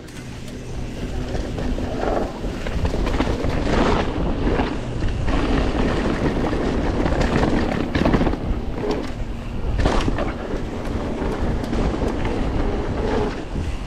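Mountain bike ridden at speed down a dirt jump line: wind buffeting the microphone and tyres rolling on dirt, growing louder as speed builds in the first couple of seconds. Several hard thuds, around 4, 8 and 10 seconds in, as the bike lands jumps that are cased.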